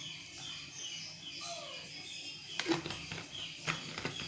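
Birds chirping in the background, with a few sharp clicks of a steel spoon against a frying pan about two and a half seconds in and again near the end.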